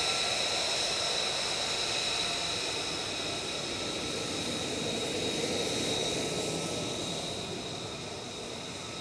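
F-35B Lightning II's Pratt & Whitney F135 turbofan at taxi power: a steady high-pitched turbine whine over a rushing jet noise, slowly fading as the jet taxis away.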